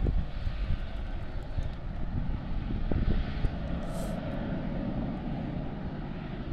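Aircraft engine noise, steady and low, with wind gusting on the microphone near the start.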